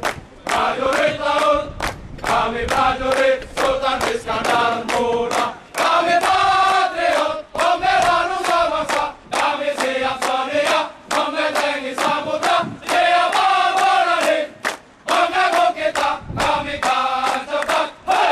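A large group of Indonesian Navy sailors singing their ship's march together in chorus, clapping their hands in time to a steady beat.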